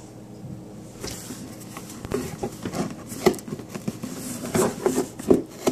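A cardboard shipping box being handled and turned over: irregular knocks, taps and scrapes on the cardboard, starting about a second in and getting busier and louder.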